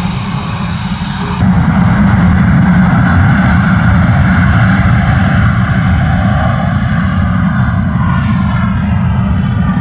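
F-22 Raptor jet engines: a loud, steady rumble that jumps louder about a second and a half in, with falling pitch sweeps near the end as the jet passes.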